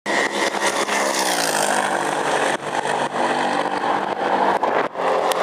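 Audi R8 sports car engine running hard, its pitch dipping and then climbing again, with brief drops in the sound about two and a half seconds in and just before the end.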